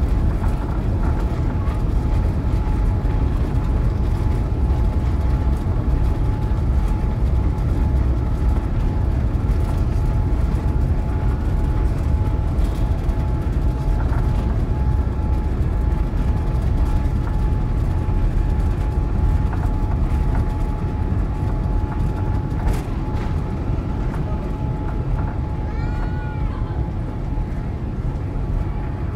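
Cabin noise of a Boeing 787-8 airliner during takeoff and initial climb: a loud, steady deep rumble with a thin steady whine above it, easing a little over the last several seconds.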